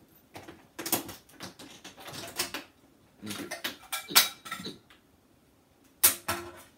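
Rattling and clacking of audio cables and their metal plugs being gathered up and handled, in irregular bursts. The sharpest knocks come about four seconds in and again just after six seconds.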